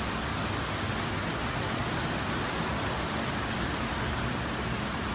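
Heavy storm rain pouring steadily, an even, unbroken hiss.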